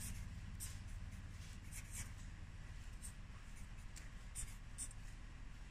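Felt-tip marker writing on a white board: a series of short, faint scratching strokes as characters are drawn, over a steady low room hum.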